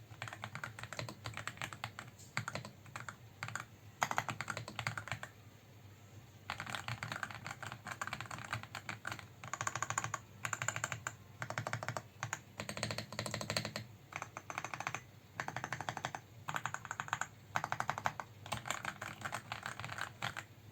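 Aula F75 mechanical keyboard with Reaper linear switches being typed on, in fast runs of keystrokes broken by short pauses.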